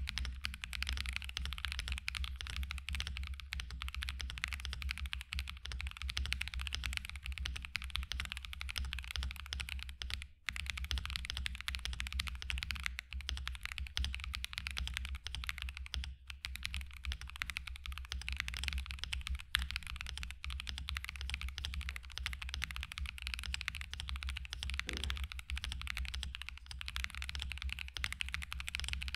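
Continuous fast typing on a mechanical keyboard with Akko V3 Silver Pro linear switches, a dense run of light, clacky keystrokes with a brief pause about ten seconds in. The springs are unlubed, which gives the keystrokes a slight ping.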